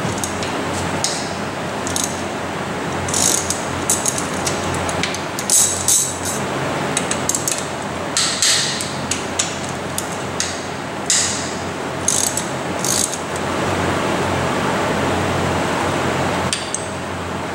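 Ratchet and wrenches clicking and clinking irregularly against bolts on a Mitsubishi 4G63 engine's timing-belt end, over steady background music.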